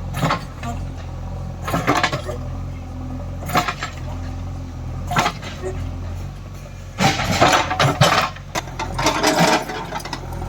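JCB 3DX backhoe loader's diesel engine running steadily under the digging, with sharp clanks and scrapes from the working arm and bucket about every second and a half, coming thicker and faster a few seconds before the end.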